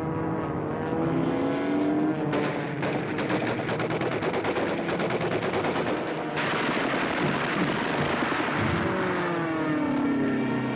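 Aircraft engines droning with shifting pitch, broken about two seconds in by some four seconds of rapid machine-gun fire, then a loud rushing engine roar that falls in pitch near the end as a plane dives past.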